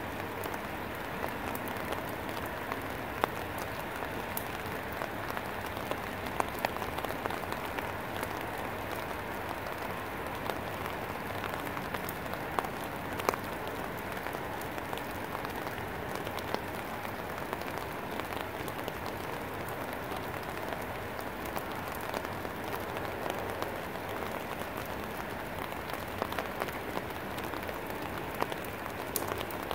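Steady rain falling on leafy garden plants: an even hiss, dotted with sharper ticks of single drops striking leaves.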